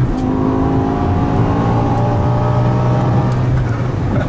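G-Power Hurricane RR BMW M5's supercharged V10 under acceleration: just at the start the engine note drops with an upshift, then rises steadily in pitch as it pulls through the gear.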